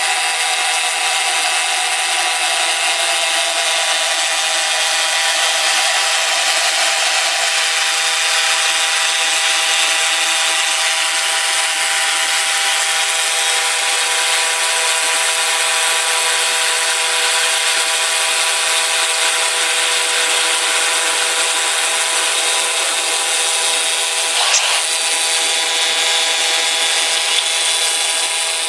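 YAG laser cutting machine cutting through thick metal plate: a steady hiss with several constant tones, and one short click late on.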